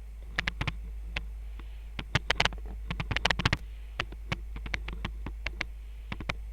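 Irregular light clicks and taps of small tools working on a freshly soldered USB-C charging jack on a phone circuit board, bunched most thickly about two to three and a half seconds in, over a steady low hum.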